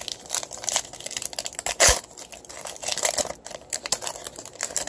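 The wrapper of a football trading card pack being torn open and crinkled by hand, with crackling and rustling and one louder sharp crack about two seconds in.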